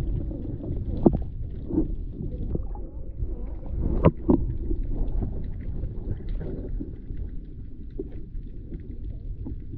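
Underwater sound from an action camera held just below the surface in shallow water: a low, murky rumble of moving water with scattered knocks and pops, the sharpest a pair about four seconds in.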